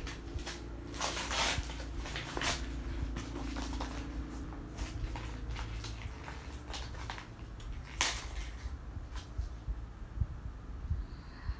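Wrapping paper crinkling and rustling as a long wrapped gift is handled and its gathered top is pulled open, with a few louder crackles, the sharpest about eight seconds in.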